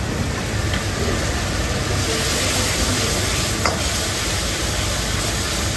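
Sauce sizzling and steaming in a steel wok as it is stirred with a metal ladle over a high-flame commercial gas burner, with a steady low roar underneath. The hiss grows brighter about two seconds in, and there is one sharp clink of the ladle on the wok a little later.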